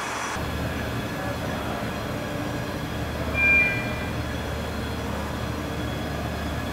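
Steady low mechanical hum of heavy machinery in a large hangar, with a brief high-pitched tone about halfway through.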